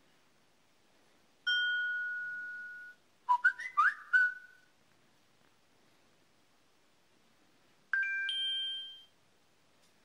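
Samsung Galaxy A5 (2015) phone speaker playing three preloaded notification tones one after another: a single bell-like ding that rings out and fades, then a quick run of short rising whistled chirps, then a chime of several tones struck together that fades out.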